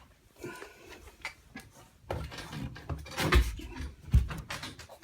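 Hands working with the smoke detector's wiring and plug: irregular rustling and small clicks, with two dull thumps about three and a half and four seconds in.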